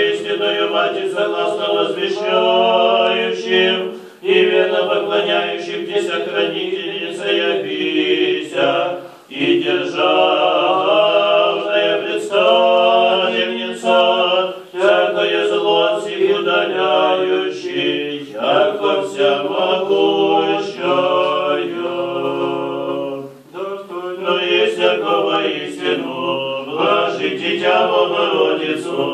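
Unaccompanied Orthodox church chant sung by a small group of voices, in long phrases with short breaks between them.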